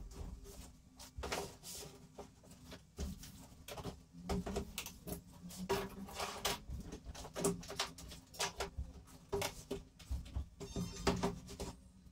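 Plastic power-tool cases and tools being set down and slid onto plywood workbench shelves: irregular knocks, thuds and clatter.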